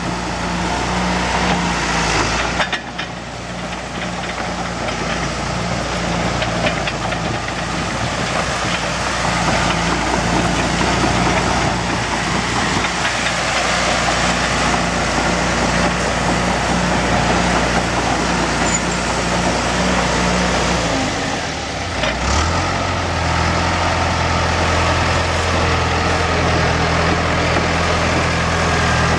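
John Deere 650G crawler dozer's diesel engine running steadily as the machine drives along on its tracks; the engine note shifts to a different, steadier pitch about three-quarters of the way through.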